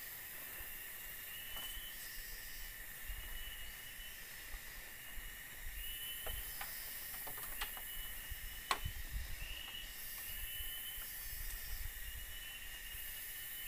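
Rainforest insects chirping and whirring steadily, with short chirps repeating every second or two. A few light knocks and clicks of bamboo slats being handled come in the middle, one sharper than the rest.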